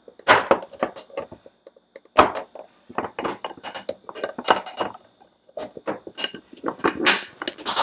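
Plastic snap-lock lids being pressed onto glass meal-prep containers: an irregular run of sharp clicks and clacks as the locking tabs are snapped shut and the containers are handled.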